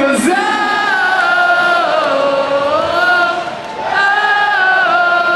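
Concert crowd singing a wordless chant in unison, with no band playing: two long phrases that rise and fall in pitch, with a short break about three and a half seconds in.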